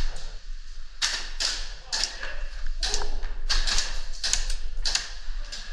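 A string of short crunching or scuffing noises, roughly two a second at uneven spacing.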